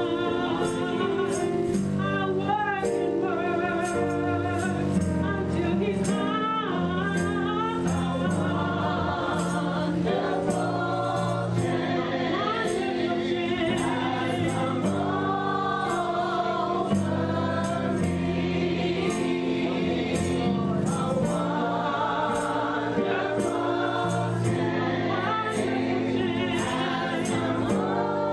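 Gospel choir singing with a band, held notes with vibrato over a steady beat of percussion strikes.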